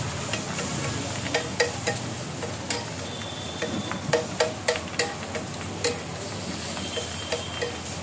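A flat metal spatula scraping and clacking against a large flat griddle (tawa) as the vegetable filling is stirred and chopped: sharp irregular metallic clicks, thickest about a second and a half in and again around four to six seconds, over a steady frying sizzle.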